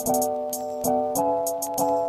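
Background music: held chords that change every fraction of a second over a light, quick beat.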